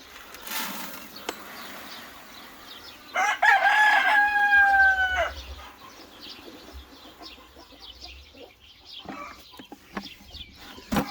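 A rooster crowing once, a loud held call of about two seconds starting about three seconds in, with chickens clucking faintly around it. A brief rushing noise comes just before.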